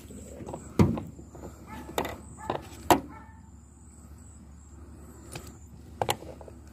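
About five sharp knocks and clunks from work on a boat's seat, irregularly spaced. The loudest come about a second and three seconds in, with a quieter stretch before a last knock near the end.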